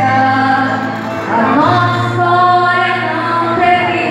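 A young female singer sings a pop ballad into a microphone over an instrumental backing track, amplified through stage speakers. She holds long notes and slides up into them.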